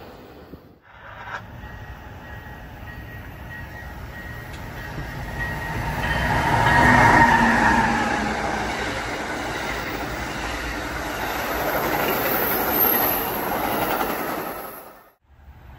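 Amtrak passenger train passing at speed: its rumble builds to a peak about seven seconds in as the locomotive goes by, with a pitched whine that drops in pitch as it passes. The cars then rush past with steady wheel-on-rail noise until the sound cuts off abruptly near the end.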